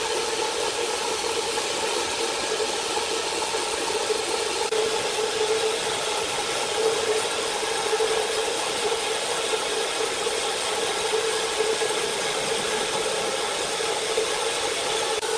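Sawmill machinery running steadily: a constant mechanical hum over a hiss, with no break or change in pitch.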